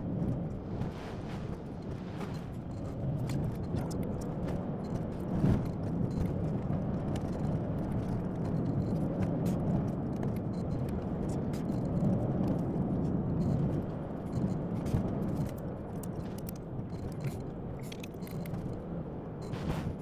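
A car on the move: a steady rumble of road and engine noise with many quick rattles and clicks throughout.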